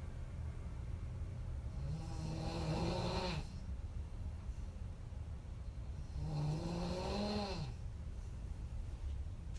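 A woman snoring: two long, pitched snores about four seconds apart, each ending in a falling pitch, over a steady low rumble.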